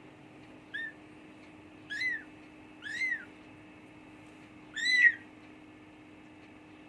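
Young kitten, about two weeks old, mewing for its mother: four short high calls, each rising and falling in pitch, the last one the loudest.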